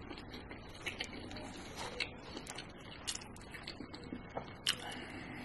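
Close-miked eating sounds: wet mouth clicks and smacks while chewing mashed potatoes, with a plastic fork scraping through the food in the takeout tray. Scattered short clicks, the loudest a little before five seconds in.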